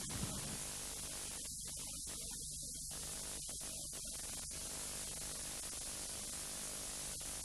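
Steady hiss and electrical mains hum of an old videotape soundtrack, with two short, dull low thumps right at the start. The hiss briefly cuts out a few times in the first half.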